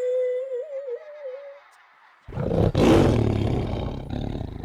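A single thin wavering tone for about a second and a half, then a loud, deep roar that starts suddenly about halfway through and keeps going.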